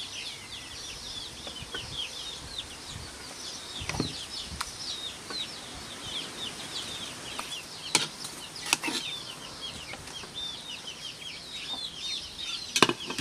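Small birds chirping continuously in the background, with about four sharp clinks of a metal ladle against the pot and plate as chicken is spooned onto rice; the loudest clink comes near the end.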